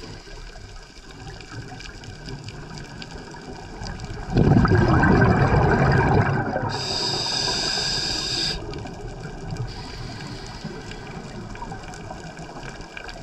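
Underwater scuba dive recorded through a GoPro housing: a low, muffled water hiss, then, about four seconds in, a loud rush of exhaled bubbles from a scuba regulator that lasts about four seconds, with a higher hiss near its end, before the hiss settles back.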